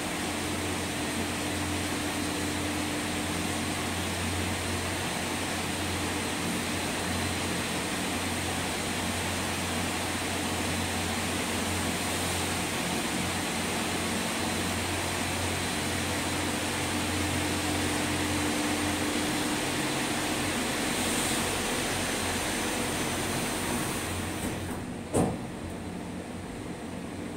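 Funitel gondola cabin carried through the ropeway station, heard from inside the cabin: a steady mechanical hum and whir of the station's conveyor machinery. Near the end the noise eases and there is a single sharp clunk as the cabin leaves the station.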